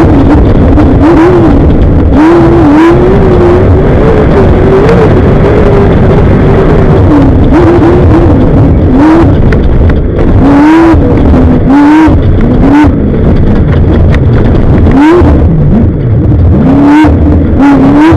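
Off-road race vehicle's engine running hard at very high level, its revs climbing and dropping again and again every second or two as the throttle is worked, over a dense noise of wind and chassis rattle with frequent knocks.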